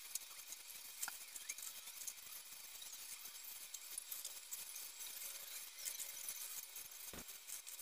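Faint, dense crackle of tiny clicks over a high hiss: the small motors and plastic pieces of Cubelets-and-LEGO robots at work, sped up thirty times. A soft knock sounds near the end.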